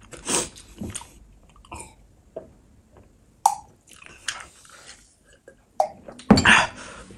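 Close-miked eating mouth sounds: short wet smacks and chewing, then drinking from a glass, with the loudest sounds coming in a cluster near the end.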